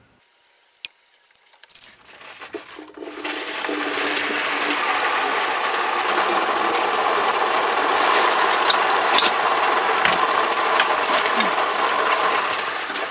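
A hand pipe cutter clicks as it closes on a CPVC water pipe about a second in, then water starts rushing out of the cut line, building over a second or so into a steady loud gush. It is water left standing in the shut-off, drained supply pipe, more than expected.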